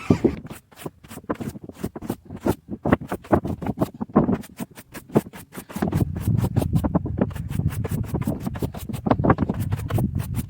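Hand tool scraping old sealant off a flat metal roof seam in quick repeated strokes, about four or five a second, growing heavier and louder about six seconds in.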